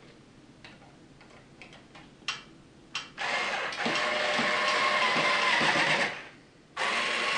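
Cordless drill-driver tightening the screws of a ceiling fan's mounting base. A few faint handling clicks come first, then the motor runs steadily for about three seconds, stops briefly, and starts again near the end.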